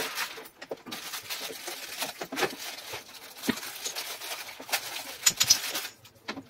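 Panels of a DIY cube shoe rack being handled and pushed into its frame: rustling and scraping with scattered light clicks and taps, dying down near the end.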